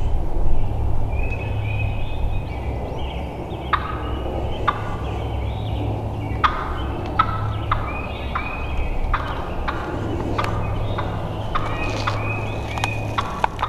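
Wild turkeys gobbling and calling, a run of short sharp calls starting about four seconds in and repeating through the rest, over a steady low rumble.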